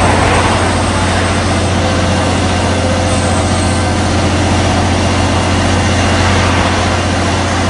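Crane truck's engine running steadily, a constant low drone with a noisy wash over it.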